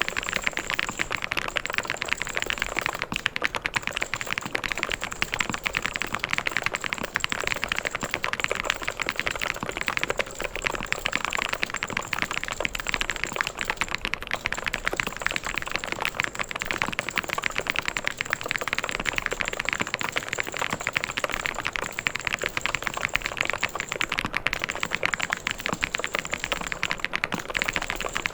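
Mechanical keyboard being typed on continuously: a dense, unbroken stream of key clicks.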